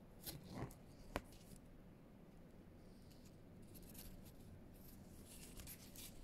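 Near silence: quiet room tone with a few faint rustles, a single sharp click about a second in, and light crackling near the end.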